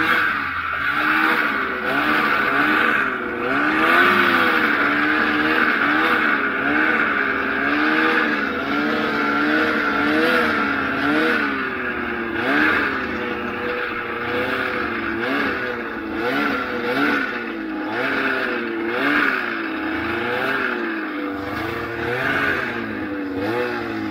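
Old Ski-Doo Formula Z snowmobile's two-stroke engine running as it is ridden, its pitch rising and falling again and again with the throttle, over a steady hiss.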